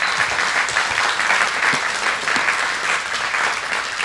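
Congregation applauding: many hands clapping, dense and steady.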